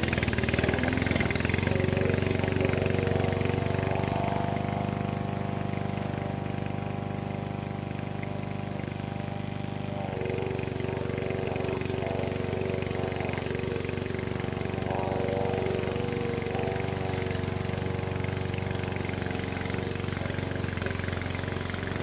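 Petrol engine of a Vigorun VTC55090 remote-control tracked mower running steadily under load as it cuts long grass. Its engine note changes about halfway through.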